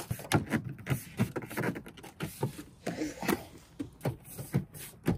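Irregular knocks, rustles and bumps of handling noise as the phone camera is picked up and carried across the car.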